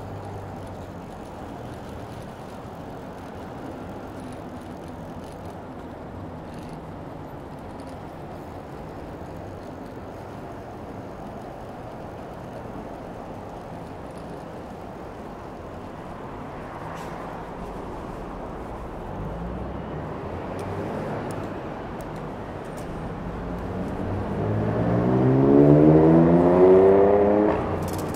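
Street traffic heard from a moving bicycle: a steady hum of road noise, then about four seconds from the end a motor vehicle accelerates close by, its engine pitch rising as it gets louder.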